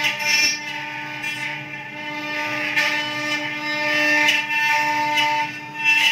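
A 1325 CNC router's spindle running with a steady whine, while the cutting noise swells and fades as the bit works the material.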